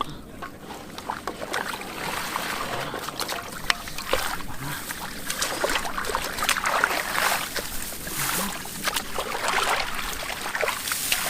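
Shallow muddy water splashing and sloshing irregularly, with many small splashes, as someone works through it by hand.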